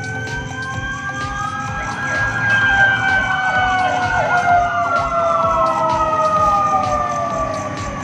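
Ambulance siren wailing, one slow rise and fall in pitch across several seconds, loudest in the middle.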